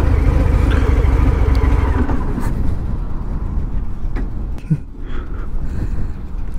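Harley-Davidson Fat Bob's Milwaukee-Eight 107 V-twin running under way, heard from the moving bike. The engine note is strong for about two seconds, then drops away to a quieter low rumble.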